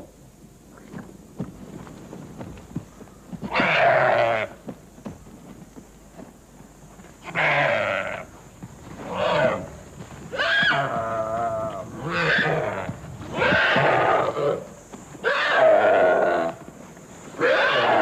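A prey animal screaming in distress as Komodo dragons attack and bite it: loud, wavering cries of about a second each, repeated some eight times.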